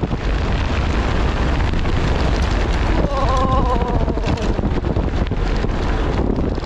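Heavy wind buffeting the microphone of a bicycle speeding downhill, with a steady low rumble from the tyres on the road. About three seconds in, a brief wavering high tone sounds for a second or so.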